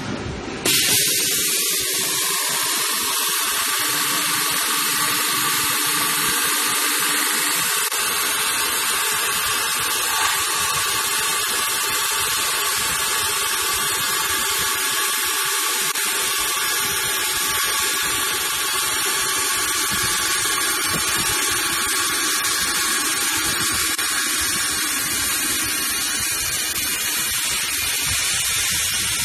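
Automatic aluminium-spinning machine running as it forms a kettle body: a loud, steady whirring hiss with a faint constant whine. It starts abruptly under a second in.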